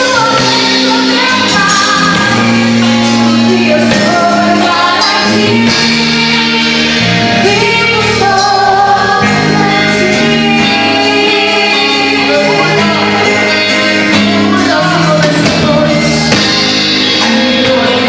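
Live gospel worship music: a band playing with a bass line and singers carrying the melody.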